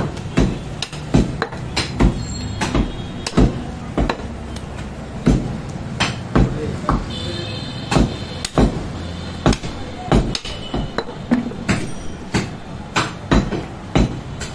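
Butcher chopping goat meat with a heavy blade: sharp, unevenly spaced chops about twice a second over a steady low background hum.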